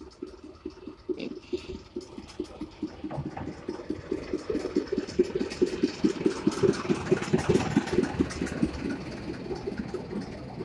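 Small narrow-gauge diesel locomotive pulling in with its passenger carriages, its engine beating rapidly and evenly. The beat grows louder as it draws up close and eases off after it passes.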